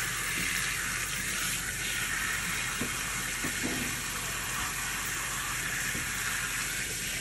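Kitchen faucet spray running steadily onto a wet capuchin monkey's back and into the sink below: an even hiss of running water.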